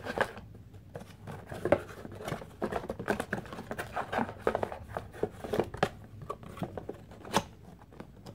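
Cardboard fishing-reel box being handled: the flap and insert scraping and rustling, with many small clicks and taps and one sharper tap near the end.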